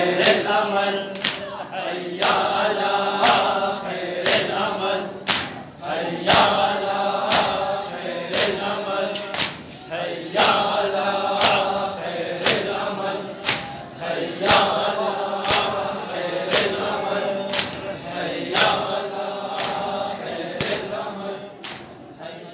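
Crowd of men chanting a mourning chant in unison while striking their bare chests with open hands in time (seena zani matam), about one sharp slap a second. The sound fades near the end.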